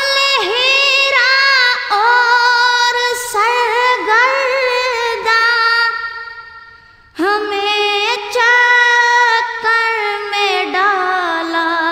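A high solo voice singing a devotional nasheed in long, ornamented melodic phrases. It breaks off about six seconds in and starts a new phrase a second later.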